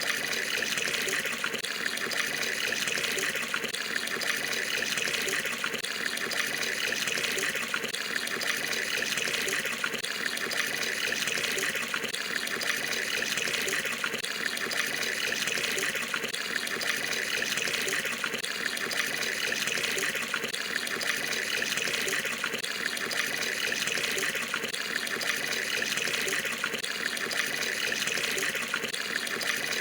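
Water pouring steadily into a tub as it fills.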